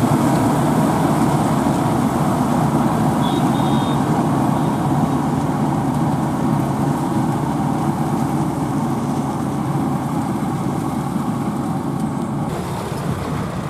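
Diesel farm machinery running steadily, a rice combine harvester or tractor engine under load, slowly getting a little quieter.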